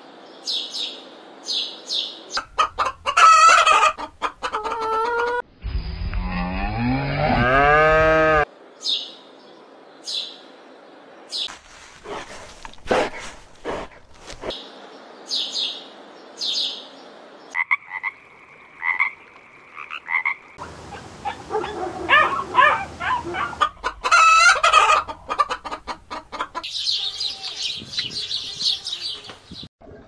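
A series of different animal and bird calls, one after another, with many short high chirps. About six seconds in there is a loud drawn-out call that sweeps in pitch.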